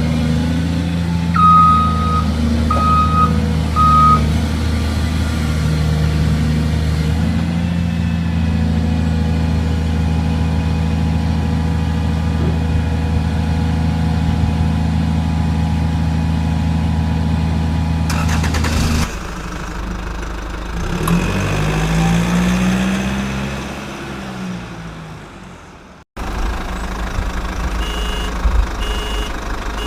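A truck engine running steadily, with three short beeps between about one and four seconds in. The engine sound stops about two-thirds of the way through; a sound that rises and then falls in pitch follows and fades out, and after an abrupt cut a truck runs with reversing beeps repeating near the end.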